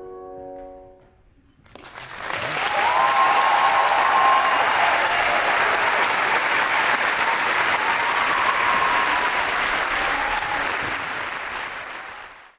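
Soft mallet-percussion music notes fade out in the first second. After a short near-silent pause, an audience breaks into loud applause with some whooping cheers at the end of the act, dying away near the end.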